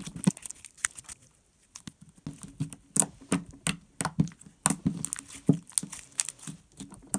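Over-activated homemade slime being kneaded and squeezed by hand with conditioner worked into it to soften it, making irregular sharp wet pops and clicks, sparse at first and then several a second.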